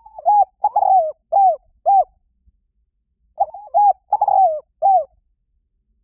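Spotted dove cooing: two phrases of short coos, each dipping in pitch at its end, the second phrase starting about three seconds after the first.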